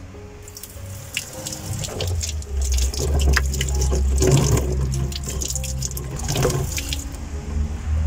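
Water running from an outdoor fountain tap and splashing over a hand being washed under it; it starts about half a second in and stops near the end.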